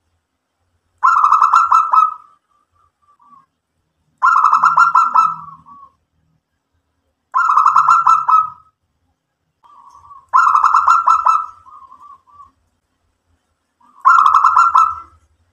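Zebra dove (local perkutut) cooing. Five rolling coos come about three seconds apart, each lasting about a second, and a few soft short notes trail after some of them.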